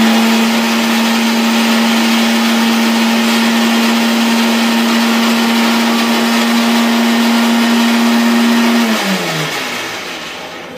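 Electric mixer grinder (mixie) running loudly with a steady whirring motor hum, grinding masala in its jar. About nine seconds in it is switched off and the motor winds down, dropping in pitch and fading.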